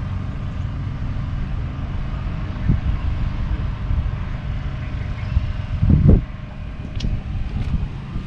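Wind buffeting the microphone over a steady low rumble, with a stronger gust about six seconds in and a short click a second later.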